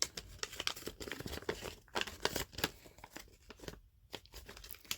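Packaging being handled and opened: irregular crinkling, rustling and small clicks as the blade sharpener is pulled out of its box.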